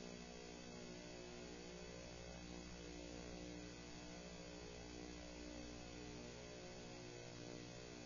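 Faint, steady electrical hum with many even overtones over a light hiss, unchanging throughout.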